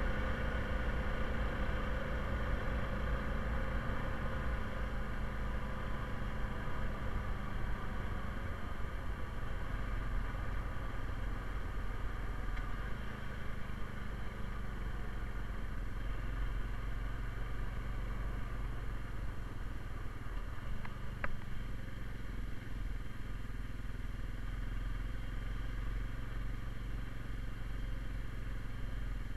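2020 Honda Rubicon ATV's single-cylinder engine running steadily while riding, with a continuous low rumble. A brief click about two-thirds of the way through.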